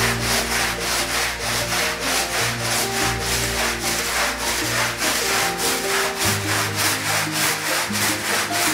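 Long-handled scrub brush with stiff bristles working shampoo foam into a wet rug, giving rapid, rhythmic rasping strokes at about four a second. Background music with long held notes runs underneath.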